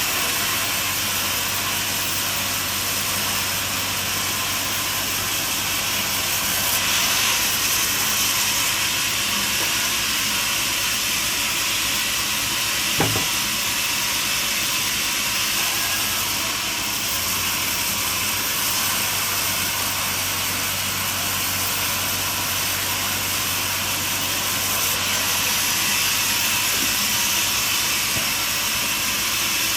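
Portable band sawmill running and cutting through a log: a steady hissing noise over a low engine hum, with a single sharp knock about halfway through.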